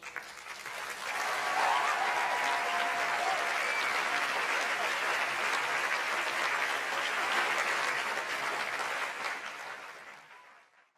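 Audience applauding, with a few voices calling out, swelling over the first second and fading away near the end.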